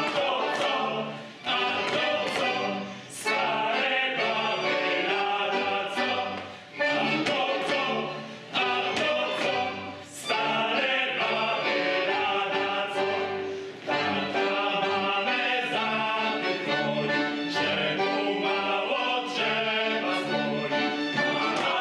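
Polish folk ensemble singing in chorus, accompanied by fiddles, accordion and double bass. The song goes in short phrases with brief breaks between them.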